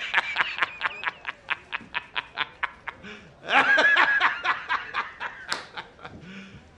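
A man laughing hard: a rapid run of short high-pitched laughs, about six a second, then a long high squealing laugh about three and a half seconds in that trails off into quieter chuckles.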